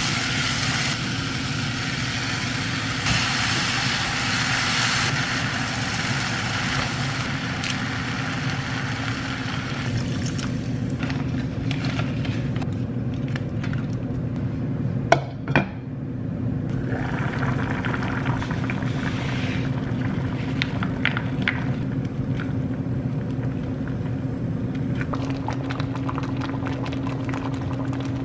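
Vegetables sizzling in a saucepan as they are stirred, the sizzle fading out after about ten seconds and briefly returning later. A steady low hum runs underneath, and a utensil knocks against the pan twice about halfway through.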